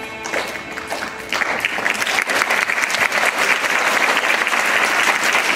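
Music ends about a second in, and an audience breaks into steady applause that continues.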